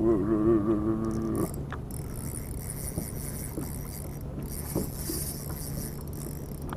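Spinning reel being cranked by hand, its gears whirring softly as line is wound in, over a steady low hum. A wavering, hum-like tone sounds for about the first second and a half.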